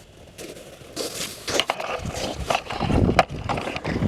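Hurried footsteps crunching over snow-covered lake ice, starting about a second in, with wind rumbling on the microphone.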